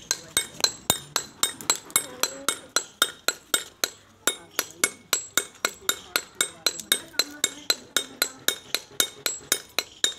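Steel pick hammer pecking the face of a sil, a flat stone grinding slab, in a steady run of sharp, ringing taps about four to five a second, with a short pause about four seconds in: the worn grinding surface is being re-roughened by hand.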